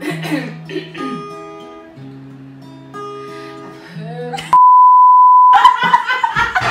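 Acoustic guitar played with a woman singing along. About four and a half seconds in, a loud one-second bleep tone replaces all other sound, and laughter follows.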